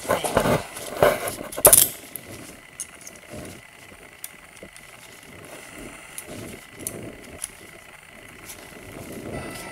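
Metal handcuffs clicking and clinking as they are unlocked and taken off, loudest in the first two seconds. This is followed by softer scattered knocks and scuffs of steps on a tile floor.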